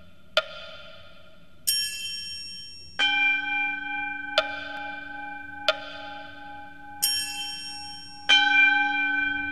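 Bells struck one at a time, seven strikes at an even, unhurried pace of about one every second and a half. Some are short, bright clinks; others ring on at several pitches until the next strike.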